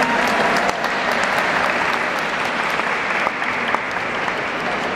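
Crowd applauding, a steady patter of many hands clapping, inside a large domed stone hall.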